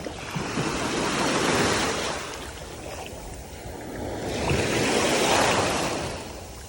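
Ocean waves washing onto the beach, two swells of surf, each building for a couple of seconds and then ebbing away.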